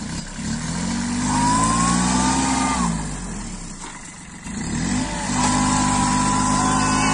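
Kubota A211N compact tractor's three-cylinder diesel engine revving hard under heavy load as it pulls a trailer of about 8 tons of sugarcane. The revs climb and hold, fall off about three seconds in, then climb and hold again, with a high whine following the engine pitch.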